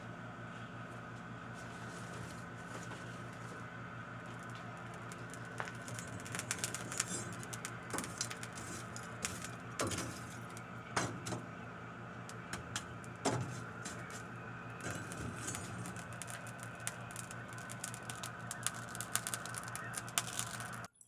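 A workshop power tool's electric motor running steadily, with scattered sharp clicks and scrapes of metal work over it. It cuts off suddenly at the end.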